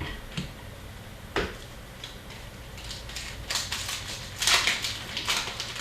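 Hockey card packs being handled: a few light clicks and taps, then crackly crinkling and rustling of foil pack wrappers and cards, loudest near the end.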